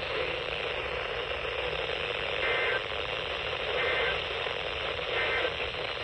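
Reecom weather alert radio's speaker giving a steady static hiss, broken by three short two-tone data bursts about 1.4 seconds apart: the EAS end-of-message signal that closes the tornado warning broadcast.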